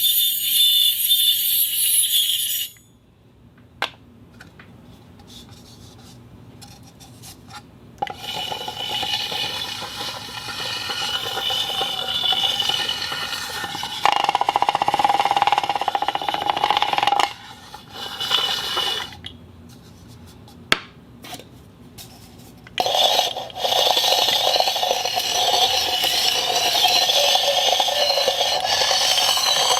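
An object rubbed and scraped across a concrete floor in a few long strokes, with quiet gaps between them and a ringing tone running through the scraping. A brighter, higher scrape stops abruptly near the start.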